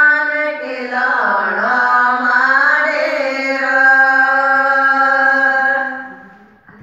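Group of women singing a Marwari Ratijoga devotional folk song together in long held notes. The last note fades out about six seconds in.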